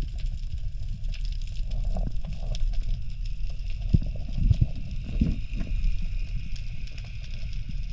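Underwater action-camera audio as a freediver swims along the seabed: a continuous low rumble of water moving against the camera housing, with scattered sharp clicks and crackles.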